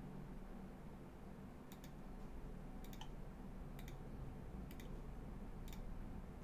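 Sharp little clicks, mostly in close pairs about once a second, over a faint steady room hum: a small button or mouse being pressed and released.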